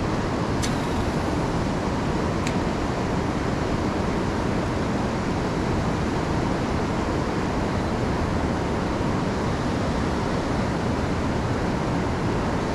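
Steady rushing noise with no change in level, with two short, faint clicks in the first few seconds.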